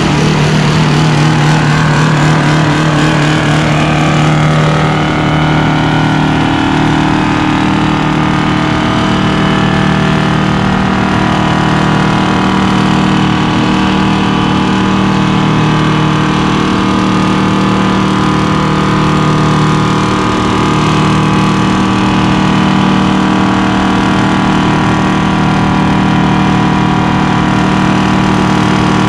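1974 White Road Boss's 8V71 two-stroke Detroit Diesel running hard at steady revs under load, doing a burnout with the drive tyres spinning.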